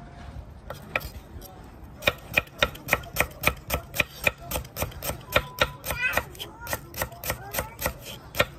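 Chef's knife slicing lemongrass stalks on a wooden cutting board. A couple of separate knocks come first, then from about two seconds in a steady run of sharp chops, about three or four a second.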